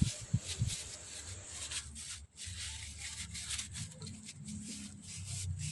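Faint handling noise: a few soft knocks in the first second, then low rubbing and rustling over a steady low hum.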